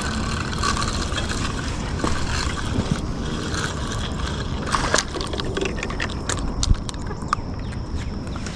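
Water sloshing and splashing as a hooked catfish is reeled in to the bank, with a few sharp clicks and knocks, the loudest about two-thirds of the way through.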